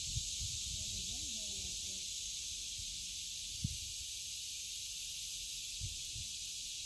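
Steady high-pitched insect chorus, crickets or cicadas, with wind rumbling on the microphone and three soft knocks, the sharpest about three and a half seconds in.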